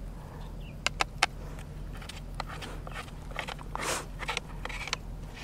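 Handling noise from a fishing landing net being fitted to its pole: three sharp clicks about a second in, then rustling and scraping of the hoop, mesh and handle.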